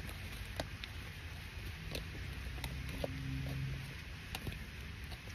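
Low rumble inside a car cabin with scattered small clicks and taps, and a brief low hum a little past halfway.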